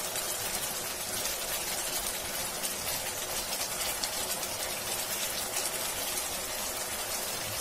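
Marinated chicken pieces sizzling steadily in a frying pan on high heat, with a wet, bubbling sizzle because the pan still holds a lot of watery juice from the marinade.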